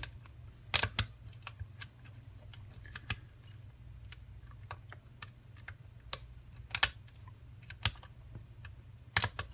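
Irregular small metallic clicks and taps of a hook pick working the pins of a Wilka pin-tumbler lock cylinder under tension, with a few louder clicks among many light ones, over a low steady hum.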